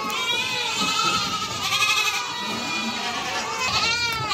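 A herd of goats bleating continuously, many overlapping calls at once: mother goats calling for their kids as the herd and the kids are reunited.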